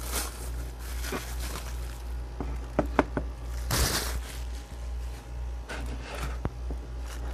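Bubble wrap rustling and crinkling as an aluminium-cased signal generator is pulled out of it, with a few sharp knocks and clicks of the metal unit being set down and handled on a wooden table. A steady low hum runs underneath.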